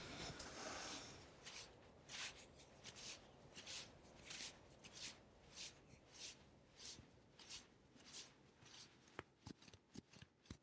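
Quiet, evenly paced swishing strokes, about one and a half a second, after a second of soft hiss; a few light clicks near the end.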